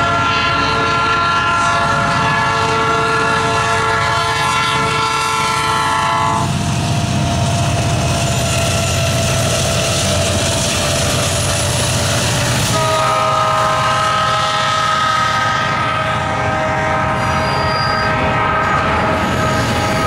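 Norfolk Southern freight locomotive's multi-note air horn sounding a long chord, breaking off about six seconds in while the heavy low rumble of the locomotives passing takes over. It sounds again about thirteen seconds in at a slightly lower pitch as the locomotives move away, with the train's rumble and rail clatter underneath.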